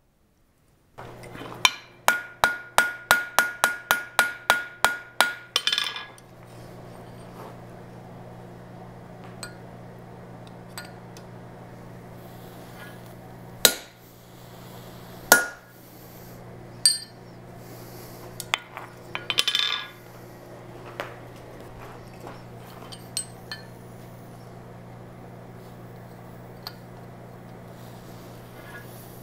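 Blacksmith's hand hammer striking hot steel on an anvil: a quick run of ringing blows, about four a second for some four seconds, flattening the horse head's ear on the horseshoe. Then, over a low steady hum, single hammer blows on a punch held against the hot shoe, spaced a second or more apart, with a short flurry near the middle.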